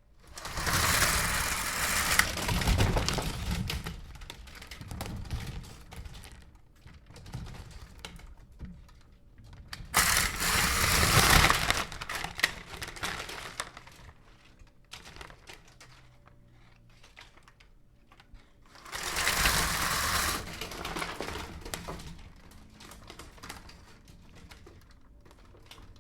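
Window blinds being pulled up and let drop, three times, each a loud rush of clattering that trails off into scattered rattles and clicks.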